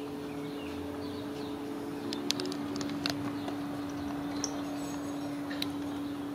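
A few faint metallic clicks of an 8 mm socket as a water pump bolt is loosened by hand, over a steady hum.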